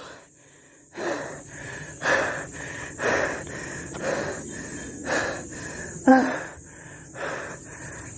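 A person breathing hard and panting after a steep uphill climb, about one loud breath a second, with a short voiced exhale about six seconds in.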